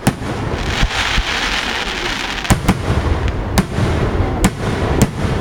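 Aerial fireworks going off: a sharp bang right at the start, a crackling hiss over the next couple of seconds, then several more bangs spaced roughly half a second to a second apart.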